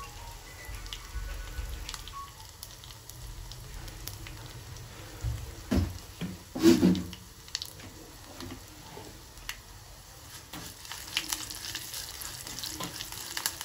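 Tempering of cumin seeds, dried red chillies, crushed garlic and curry leaves sizzling and crackling in hot oil in a small aluminium pot as it browns to golden, with a spatula stirring it near the end. Two louder knocks come a little past halfway.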